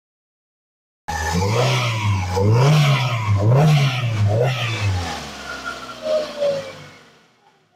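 Peugeot 206's TU four-cylinder petrol engine being revved by hand at the throttle, its pitch rising and falling three times before it drops away, during a test run after a head gasket replacement.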